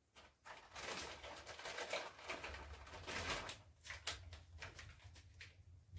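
Faint crinkling and rustling of plastic packaging as a rifle magazine is unwrapped and handled, in irregular short crackles that stop about half a second before the end.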